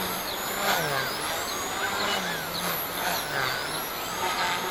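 XK K130 RC helicopter in flight, fitted with a 3D-printed main gear: its motor and rotor whine glides up and down in pitch several times.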